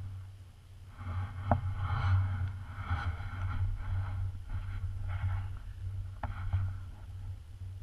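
Handling noise from a moving camera: a low rumble with rustling bursts about once a second and two sharp clicks, one about a second and a half in and one about six seconds in.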